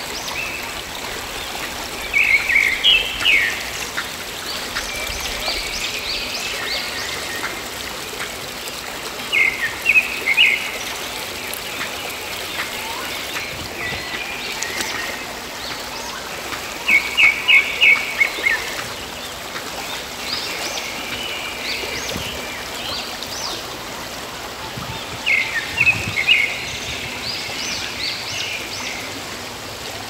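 Small shallow stream running steadily over stones. Over it a songbird sings short bursts of quick high chirps four times, roughly every seven or eight seconds, louder than the water.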